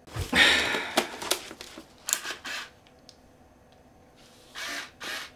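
Hands handling a Minolta Maxxum 360si SLR body: a second of rustling, then several short sharp clicks of its switches and buttons, and two brief scuffs near the end.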